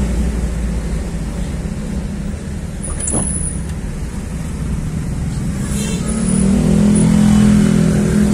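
Engine of an older vehicle heard from inside its cab, running steadily with road noise. About six seconds in it grows louder under acceleration. A brief high squeal comes around three seconds in.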